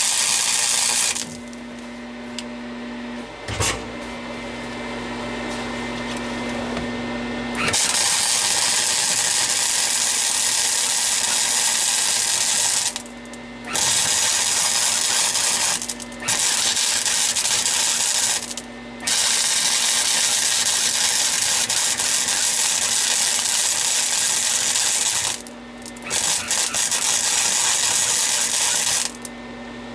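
MIG welder's arc crackling in a string of weld runs a few seconds each, stopping and restarting about six times, with a steady hum from the welder in the short pauses between runs.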